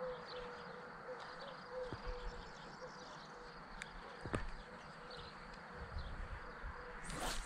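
Faint steady buzz with a few light clicks of a float-fishing rod and reel being handled, then a brief whoosh near the end as the rod is swung out to cast.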